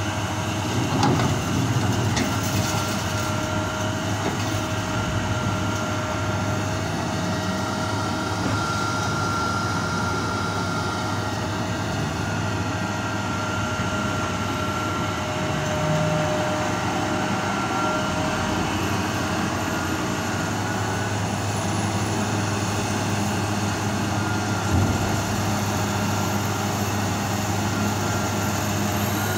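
BEML hydraulic mining excavator running close by: a steady engine and hydraulic drone with a thin, steady high whine over it. A couple of short knocks come about a second in and again about 25 seconds in.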